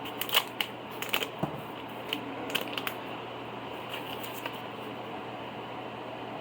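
A quick run of light clicks and rustles as items are handled on a kitchen counter during the first three seconds, then a steady low background hum.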